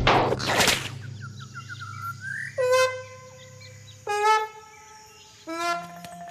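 Cartoon sound effects: a loud swish, then a quick run of rising chirps. Three horn-like honking calls follow, each sliding down into a held note.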